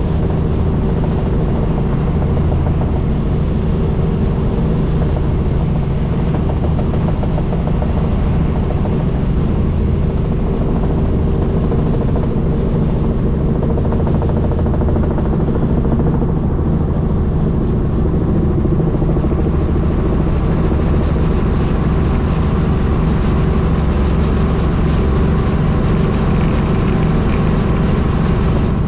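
Helicopter in flight: the steady drone of rotor and engine, holding level throughout, with a touch more hiss in the last third.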